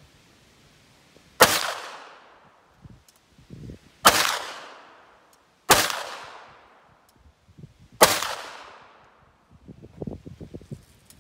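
Four shots from a .410 (36-gauge) Atalante revolver shotgun, fired at uneven intervals of about one and a half to two and a half seconds, each followed by a fading echo about a second long. Small clicks and handling noise follow the last shot.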